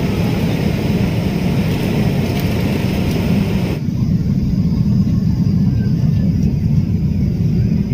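Steady jet airliner cabin noise heard from a passenger seat: a deep, even rumble of engines and airflow. The lighter hiss above it drops away about four seconds in.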